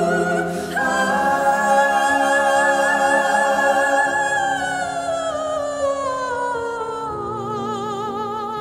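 Music: a female voice singing one long note with vibrato, held high for about three seconds and then gliding slowly down, over steady lower accompanying notes.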